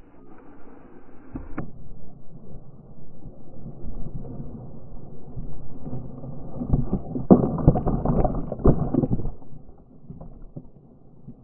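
Sea water splashing and crashing over a kayak as a bottlenose dolphin leaps out right beside and over it, with spray hitting the microphone. It builds from a few seconds in, is loudest with several sharp slaps of water between about seven and nine seconds, then dies away.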